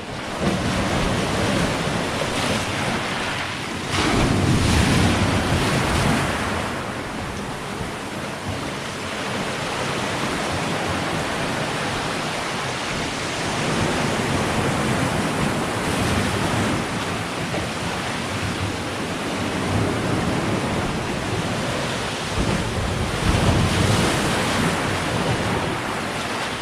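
Ocean surf breaking and washing on the shore in a steady rush, swelling louder about four seconds in and again near the end, with some wind noise on the microphone.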